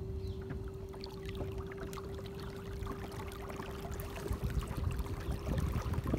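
Water lapping and trickling around a small boat, with scattered small splashes and a steady hum that stops shortly before the end.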